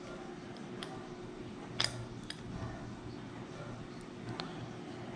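A few faint clicks and taps of small marker parts being handled during reassembly, the loudest about two seconds in, over a low steady hum.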